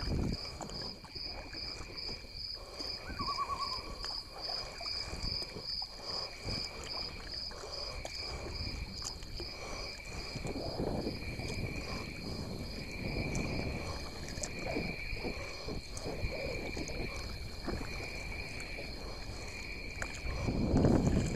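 Kayak paddling: low, uneven water and paddle-stroke noise that swells every second or two, mixed with wind buffeting the bow-mounted camera's microphone. A steady high, rapidly pulsing trill runs underneath.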